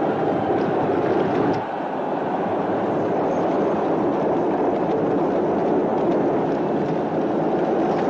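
Chariot race on a film soundtrack: the steady, dense din of galloping horse teams and chariot wheels on the arena track.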